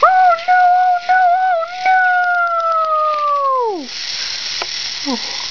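A person's high falsetto voice wailing in held cries for a squashed toy figure, the last cry held about two seconds before sliding down in pitch and stopping near the four-second mark. A steady hiss follows.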